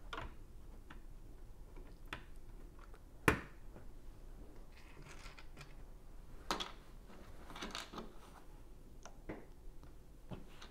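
Plastic Lego bricks being handled and pressed together by hand: scattered small clicks and clacks with softer rustling between, and one sharper, louder click a bit over three seconds in.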